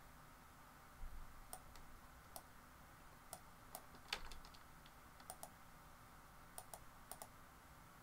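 Faint, scattered clicks of a computer mouse and keyboard, about a dozen, several of them in quick pairs.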